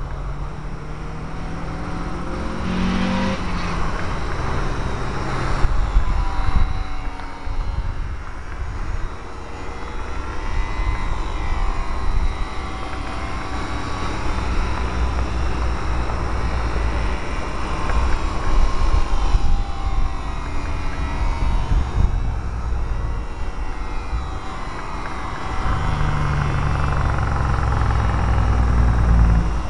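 Brushed electric motor and propeller of a radio-controlled Super Cub LP model plane whining in flight, its pitch slowly rising and falling as it circles. A low rumble underlies it and grows louder near the end.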